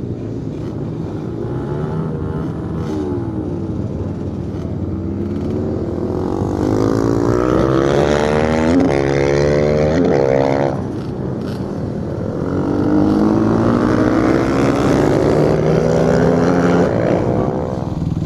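Motorcycle engine accelerating hard, its pitch climbing again and again as it runs up through the gears. It eases off briefly about eleven seconds in, then pulls up through the gears again.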